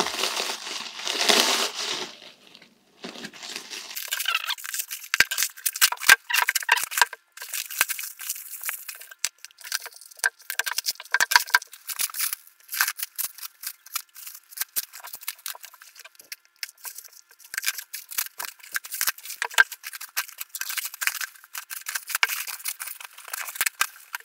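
Thin black plastic postal wrapping being torn and pulled off by hand, a long irregular run of crinkling and ripping.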